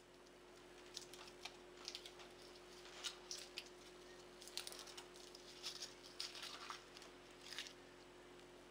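Faint, irregular crackling and ticking from a stove with a cast iron skillet heating on it, a short crackle every second or so, over a faint steady hum.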